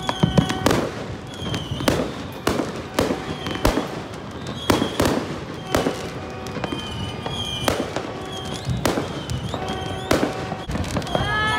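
Aerial fireworks shells going off in a rapid series of sharp bangs, about two a second.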